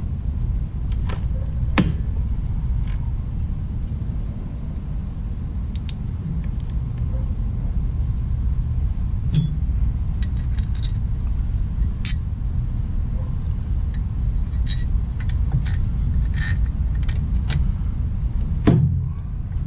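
Scattered light metallic clicks and clinks of hand tools, bolts and washers being fitted, over a steady low rumble.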